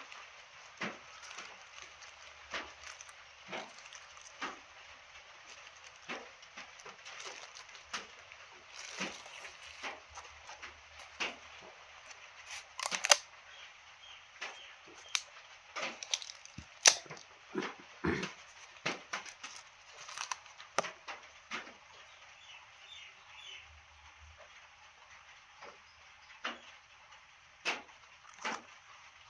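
Plant packaging and pots being handled and unpacked: irregular rustling with scattered clicks and knocks, two sharp snaps about halfway through.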